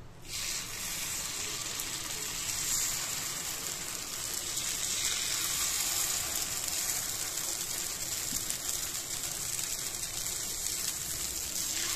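Paniyaram batter sizzling in hot oil in the wells of a kuzhi paniyaram pan. The hiss starts suddenly as the first ladleful goes in and then runs on steadily while more wells are filled.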